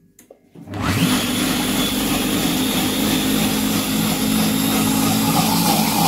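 Monsieur Cuisine Connect food processor starting up about a second in and running steadily at speed 8, its motor and blade whirring as they blend pineapple, ice cubes and coconut milk.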